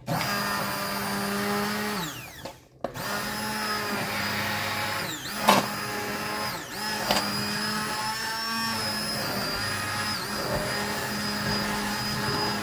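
Electric immersion hand blender running in a pot of cooked asparagus soup with cream, puréeing it. The motor winds down and stops about two seconds in, then starts again and runs steadily. Two sharp knocks come midway.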